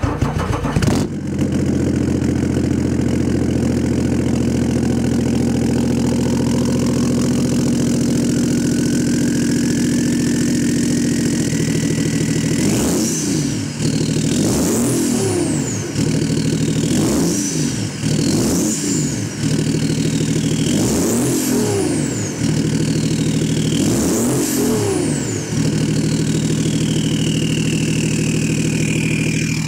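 BMW E39 530d's 3.0-litre M57 inline-six turbodiesel, fitted with a downpipe and a straight-through exhaust without mufflers, starts cold and idles steadily. About halfway through it is revved in a series of short blips, with a high whistle that climbs and falls with each one. Somewhat loud.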